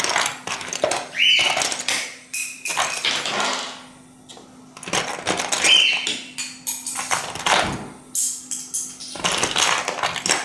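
Plastic Lego bricks clicking and clattering as a pet bird handles, rummages through and drops them, with two brief high chirps from the bird.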